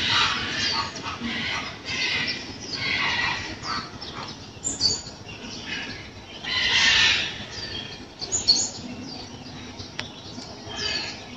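Birds chirping and squawking: irregular harsh calls mixed with a few short, high, curving chirps.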